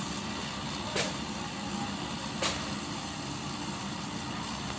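John Deere W70 combine harvester running steadily as it harvests, a constant engine-and-threshing drone with a low hum. Two short sharp clicks stand out, about a second in and again about two and a half seconds in.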